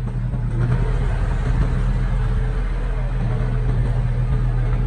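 Diesel engine of heavy earthmoving equipment running steadily, getting a little louder about half a second in.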